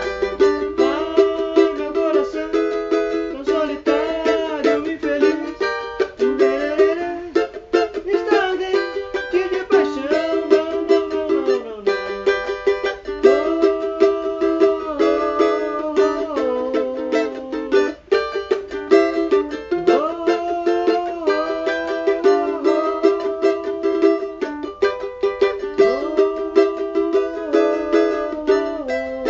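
Cavaquinho being played continuously in quick, rhythmic strokes with a moving melody.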